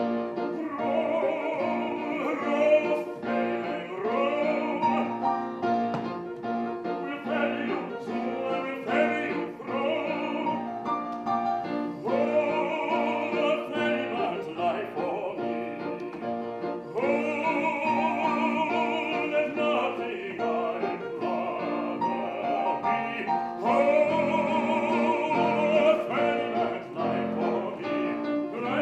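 Operatic singing with a wide vibrato over sustained instrumental accompaniment.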